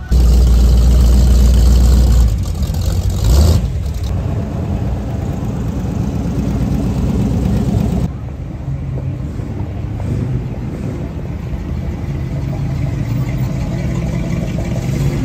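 Classic car engines running loud with a heavy low rumble, in short cut-together clips. There is a brief louder burst about three and a half seconds in, and the sound changes abruptly about two and eight seconds in.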